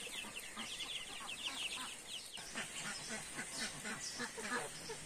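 Chickens calling: chicks peep in quick succession, high and falling, then hens give a run of lower clucks about halfway through.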